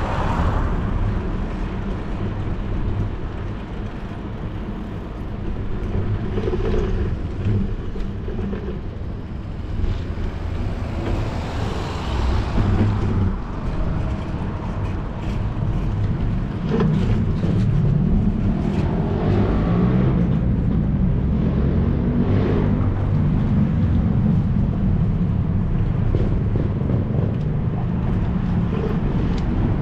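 Wind rumbling over the microphone of a camera on a moving bicycle, mixed with tyre and road noise; it grows a little louder in the last third.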